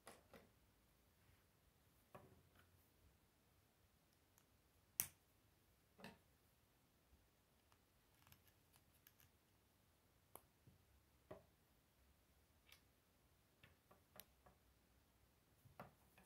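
Faint, scattered clicks of plastic K'nex rods and connectors being snapped together and handled, roughly one every second or two, the sharpest about five seconds in.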